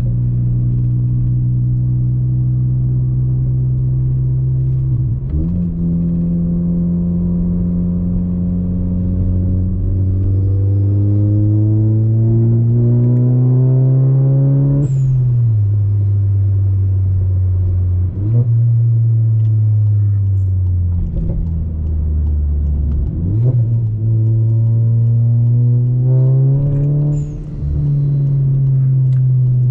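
Turbocharged Volkswagen Golf engine pulling through the gears, its pitch rising steadily under acceleration and dropping sharply at gear changes about 5, 15, 18 and 23 seconds in. A brief high hiss comes at two of the shifts, about 15 and 27 seconds in.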